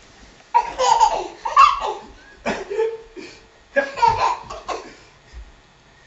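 Laughter in about four short bursts, one after another.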